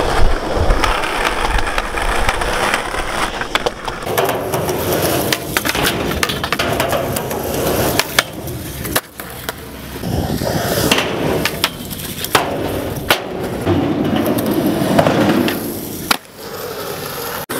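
Skateboard wheels rolling on concrete and asphalt, broken by sharp clacks from several tail pops and landings. Partway through, a board slides along a metal handrail.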